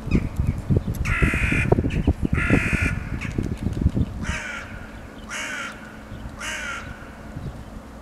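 A crow cawing five times, harsh calls about a second apart, over a low rumble with thumps that fades out about halfway through.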